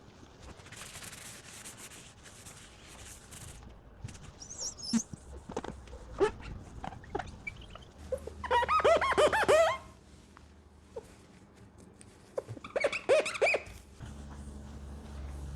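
A cloth rubbing off sticker residue with solvent: a hiss for the first few seconds, scattered scrapes, then two runs of high squeaks from the cloth on the surface, a longer one about eight seconds in and a shorter one near the end.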